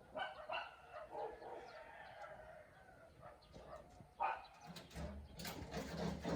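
Faint animal calls: a drawn-out, wavering call over the first few seconds, then shorter sharp sounds near the end.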